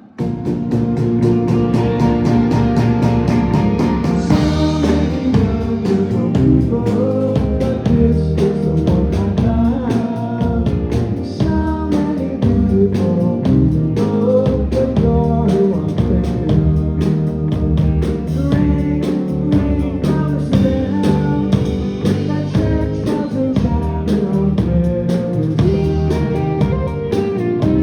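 Live rock band kicking into a song at full volume all at once: drum kit, guitars and a singing voice.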